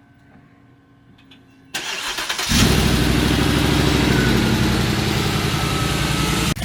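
Car engine starting: a short noisy burst that fits the starter cranking, then the engine catches about two and a half seconds in and runs steadily, its revs easing down a little.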